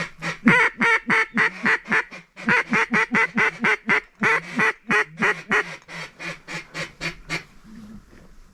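Duck call blown in a fast series of loud mallard-style quacks, about four a second, with a brief break a couple of seconds in, stopping shortly before the end, to call in approaching ducks.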